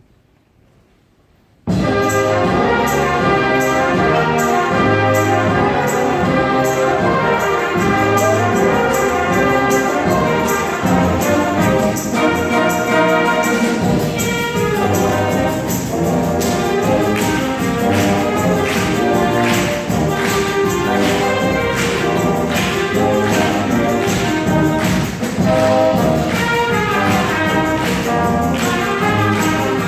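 School wind band playing, with trumpets and trombones prominent. It starts abruptly about two seconds in after near silence and then plays on steadily.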